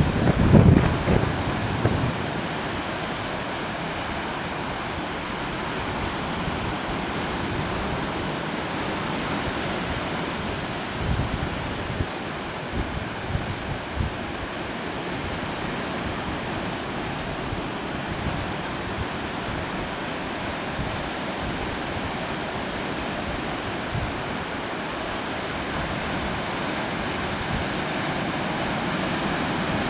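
Steady wash of Pacific Ocean surf, with wind buffeting the microphone in the first couple of seconds and a few brief gusts around the middle.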